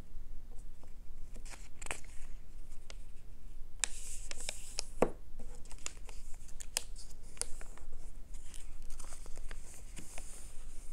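Paperback book pages being folded, creased and smoothed flat by hand on a table: irregular paper rustling and crinkling with scattered sharp crackles.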